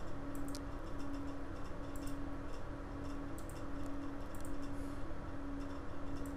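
Sparse, irregular computer mouse clicks, a dozen or so light ticks spaced unevenly, over a steady low electrical hum.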